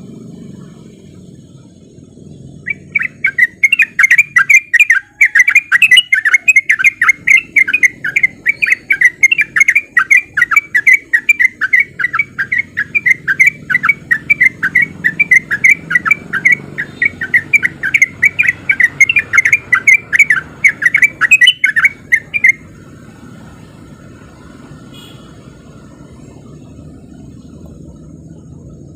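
Yellow-vented bulbul (trucukan) singing a long, fast, unbroken run of loud repeated chattering notes, the 'ropel' style of song. It cuts off abruptly about 22 seconds in, leaving a low background rumble.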